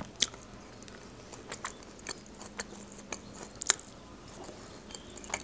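Close-miked chewing of Caesar salad: crunching of lettuce and croutons with small wet mouth clicks. There are a few sharper clicks, the loudest about two-thirds of the way through.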